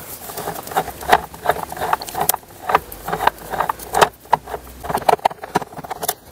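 A hand tool tightening the 13 mm bolt on a car battery's hold-down bracket, making a series of irregular sharp clicks and taps, about three or four a second.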